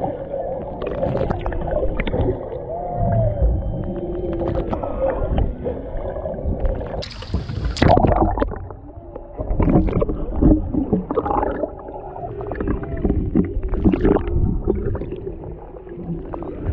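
Humpback whale song heard underwater: drawn-out moans and short pitch glides, over a wash of water noise and clicks. About seven seconds in comes a brief loud hiss of splashing and bubbles.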